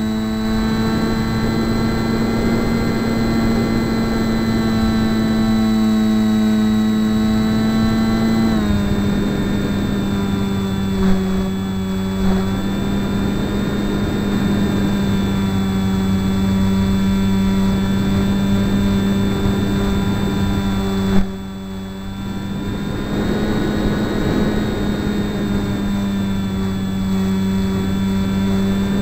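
WingDragon RC plane's electric motor and propeller running in flight, heard from the onboard camera as a steady whine over wind rush. The pitch steps down slightly about a third of the way in, and the motor briefly dips in level about two-thirds of the way through before picking up again.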